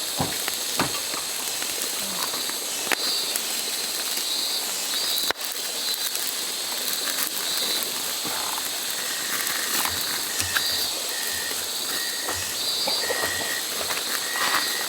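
Riverside outdoor ambience: a steady hiss of flowing water with insects chirring high and pulsing. A short chirp repeats again and again in the second half, with a few light clicks and a brief break about five seconds in.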